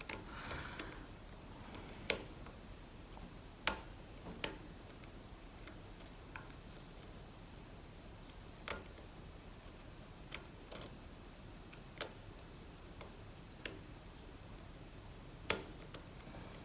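Light, irregular clicks of a lock pick working the pins of an Assa Abloy Arrow pin-tumbler lock, about a dozen clicks spread unevenly a second or two apart as pins are lifted and set.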